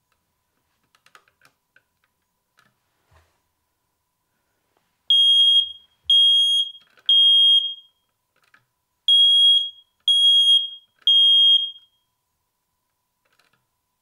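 Ello smoke alarm sounding on its test button: two sets of three loud, high beeps, each about half a second long, the temporal-three alarm pattern. Before the beeps come faint clicks as the plastic test button is pressed and held.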